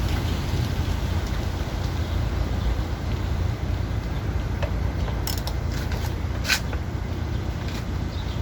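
Steady low rumbling background noise, with a few sharp clicks about five to six and a half seconds in.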